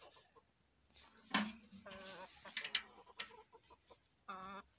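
Domestic hens clucking, with two short wavering calls, one about two seconds in and one near the end. A sharp knock about a second and a half in, then a few lighter taps.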